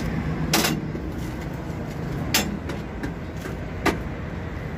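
Steady low rumble of a running vehicle engine, with three sharp clicks about a second and a half apart.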